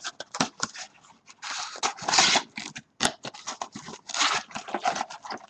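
Sports card packaging being torn open and handled: irregular crinkling, tearing and clicking of wrapper and cardboard, with a sharp snap about three seconds in.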